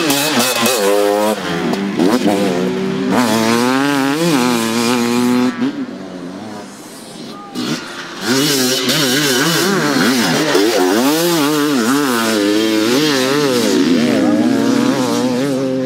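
Enduro motorcycle engines revving hard as riders pass one after another, the pitch rising and falling with the throttle and gear changes. The sound drops quieter for about two seconds just past the middle, then comes back loud with the next bike.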